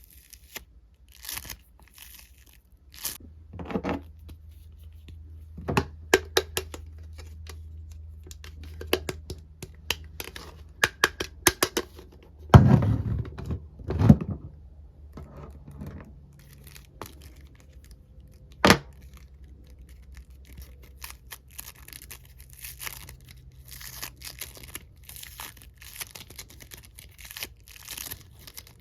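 Hands working a foam squishy and plastic toy parts: crinkling, tearing-like rustles and scattered clicks. A few louder knocks come in the middle.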